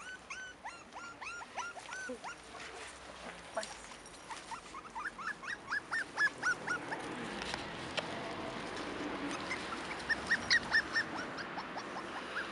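Five-week-old Cairn Terrier puppies squeaking and whimpering in quick runs of short, high, rising-and-falling cries, several a second. A stretch of rustling comes in the second half.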